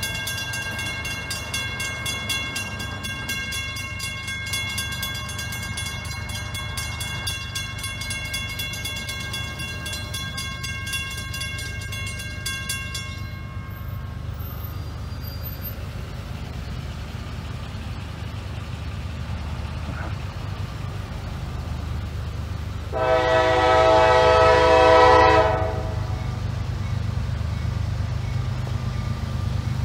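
Railroad grade-crossing bell ringing rapidly, stopping about 13 seconds in. About ten seconds later a locomotive air horn sounds one chord blast of about two and a half seconds, the loudest sound, over a steady low rumble.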